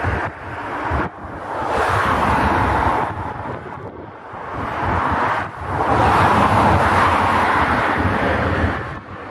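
Wind buffeting the microphone in loud gusts a couple of seconds long, each cutting off sharply, over a low rumble.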